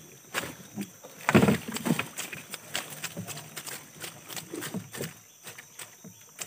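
Wet fishing net, tangled with twigs and leaves, being hauled into a small boat by hand: irregular knocks and scrapes of the net and sticks against the hull, the loudest a thump about a second and a half in.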